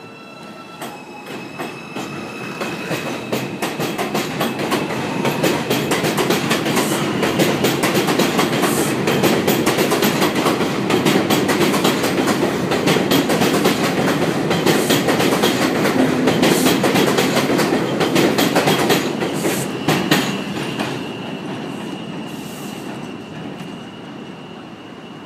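An R142 subway train pulls out along elevated tracks. It builds over the first several seconds to a loud, steady rumble with rapid clicking of wheels over rail joints, then fades after about 20 seconds as the train pulls away. A faint thin high tone runs underneath.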